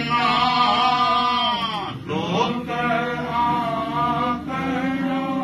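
A man's solo voice chanting a Jain devotional hymn in long held notes. The pitch glides down and back up about two seconds in.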